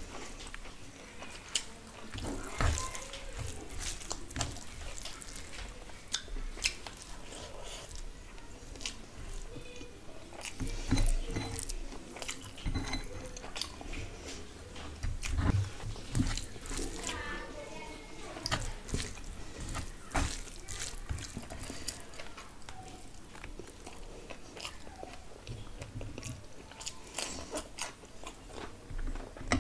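Close-up eating sounds: wet chewing and lip smacking, with fingers squishing rice and curry gravy together, full of irregular sticky clicks.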